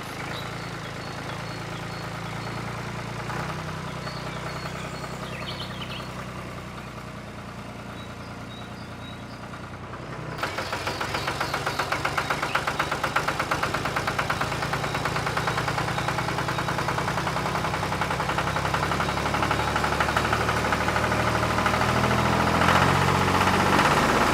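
A motor or engine running steadily, then suddenly louder and rougher from about ten seconds in, with a fast, even clatter.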